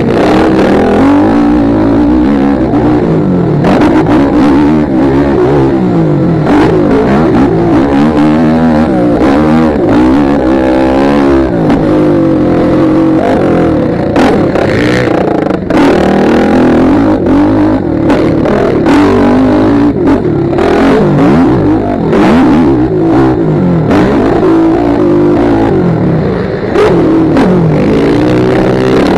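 Motocross bike engine revving up and down again and again as the rider accelerates and backs off around the track, heard close and loud through a helmet-mounted camera, with frequent short buffets.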